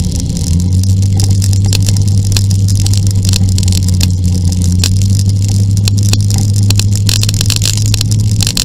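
Scooter engine running at a steady cruise, a constant low drone, with wind buffeting the microphone.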